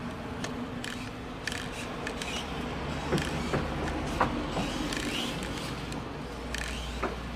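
Kyosho Mini-Z Buggy, a small electric RC buggy on its stock brushless motor, driving over wooden decking: a light mechanical whirring with a few sharp clicks around the middle as it passes close.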